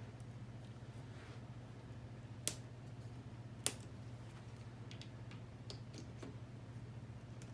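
K'NEX plastic parts clicking as a model's wheels are pulled off and clips snapped back in: two sharp snaps a little over a second apart, then a few lighter clicks, over a steady low hum.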